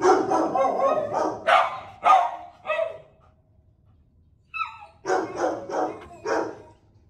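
Dog barking in runs: a quick flurry of barks at the start, three single barks about half a second apart, then after a short pause four more barks at the same pace.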